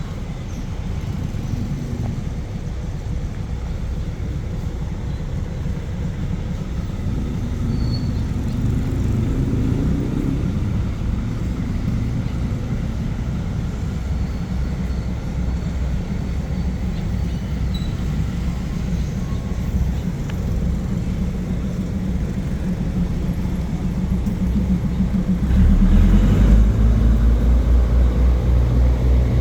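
Diesel locomotive engine running with a steady low rumble, getting clearly louder about 25 seconds in.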